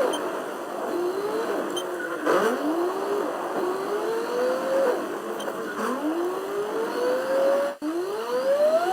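A car accelerating through the gears: the engine's pitch climbs and drops back at each shift, four times over, with a brief cut in the sound shortly before the end.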